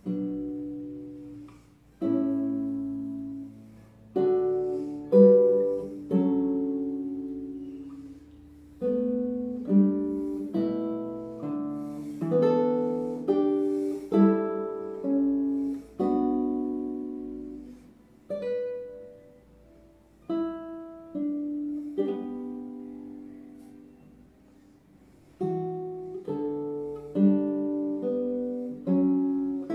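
Solo nylon-string classical guitar played fingerstyle: plucked chords and single notes that ring and fade, at a slow tempo, with a short quiet lull about three quarters of the way through before the playing picks up again.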